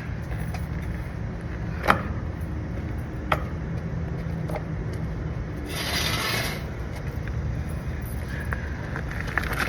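Sharp metal clicks and rubbing from a Schrader valve core removal tool being worked on an R-410A service port, over a steady low hum. About six seconds in there is a brief hiss-like burst of noise.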